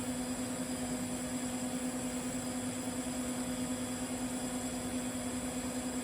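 TIG welding arc on 6-inch carbon steel pipe, fed with 308 stainless filler rod: a steady buzzing hum with a thin high hiss over it.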